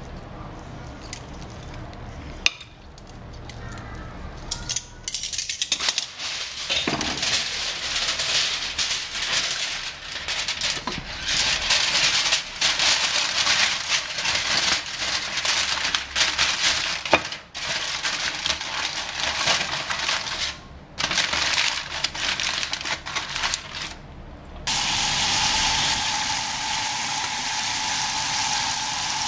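Aluminium foil crinkling and rustling as it is handled, a dense crackle full of sharp clicks. Near the end it switches abruptly to a steady sizzle: chicken skin and excess fat frying in a pan on low heat, rendering their fat.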